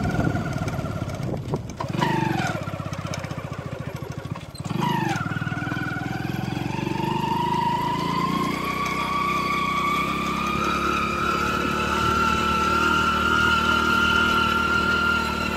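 Motorcycle engine pulling uphill. Its note falls sharply twice in the first five seconds, then rises slowly and holds steady.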